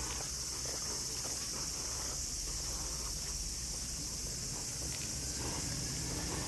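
Insects droning: a steady, high-pitched buzz that holds unbroken throughout, with a low rumble underneath.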